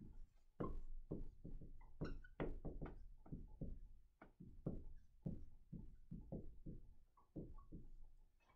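Dry-erase marker writing on a whiteboard: an irregular run of short strokes and taps, two or three a second.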